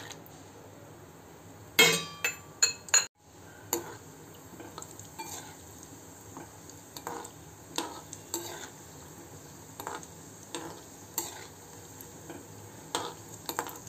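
Cashews frying in hot oil in a metal kadhai, with a soft steady sizzle. A perforated metal slotted spoon clinks and scrapes against the pan as they are stirred, with the loudest clinks about two seconds in.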